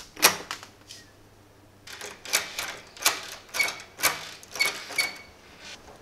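A stainless-steel door knob lockset is jiggled and twisted, giving sharp metallic clicks and rattles, several with a brief ring. There is one click at the start, a few more in the first second, then about two a second from two seconds in. The lock is stuck in the locked position, so the knob will not turn to draw the latch.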